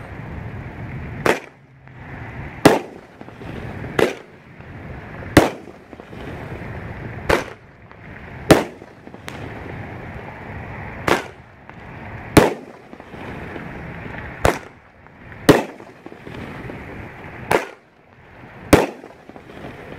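A 500 g, 12-shot aerial firework cake firing in sequence: about a dozen sharp shell bursts come at a steady pace, a little over a second apart, with a steady rushing hiss between the bangs.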